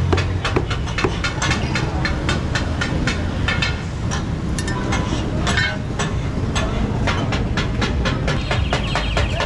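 Heavy meat cleaver chopping meat and bone on a wooden butcher's block, fast repeated strokes, several a second, over a steady low rumble of street traffic.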